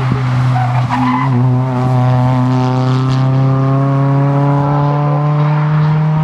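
Hyundai rally car's engine pulling hard out of a hairpin and accelerating away, its pitch climbing slowly and steadily, with a couple of short sharp cracks in the first second.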